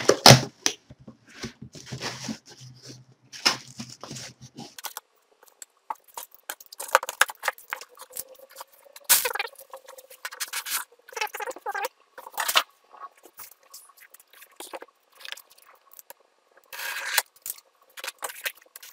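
Cardboard shipping box being opened by hand: packing tape pulled and cardboard flaps and inserts rustling and scraping in irregular bursts.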